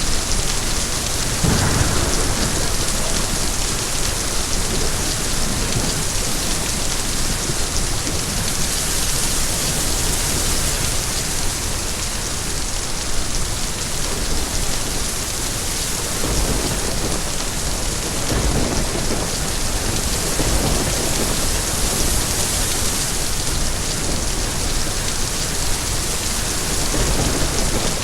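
Steady, heavy rain hissing, with low rumbles of distant thunder a few times: the first about a second and a half in, then several near the middle and one near the end.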